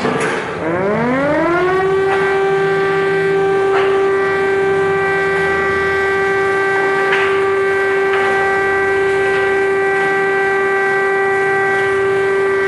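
Air-raid siren sounding an alert: it winds up from a low pitch to its full tone over about two seconds, then holds one steady, loud wail.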